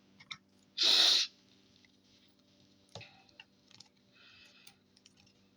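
A person's short, sharp breath about a second in, followed by faint clicks and light handling noise.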